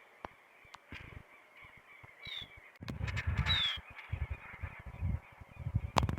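Birds calling outdoors: short, high, falling notes, twice, over an irregular low rumble.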